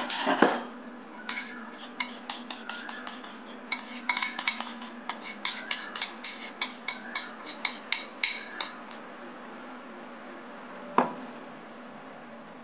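A porcelain bowl and a stainless steel mesh sieve clinking together as batter is poured through the sieve. There is a knock at the start, then a run of quick, sharp taps for several seconds, and one more knock near the end.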